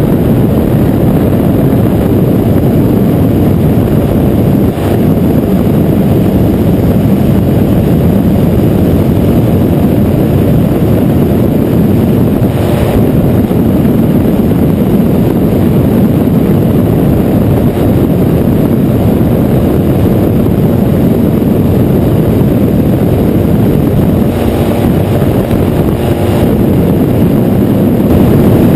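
Flex-wing microlight trike in flight: the steady, loud drone of its engine and propeller mixed with wind rushing over the open-mounted camera's microphone.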